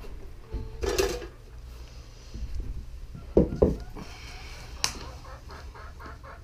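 Objects being handled on a wooden workbench: a clatter about a second in, two sharp knocks in quick succession a little past the middle, then a single click, over a steady low hum.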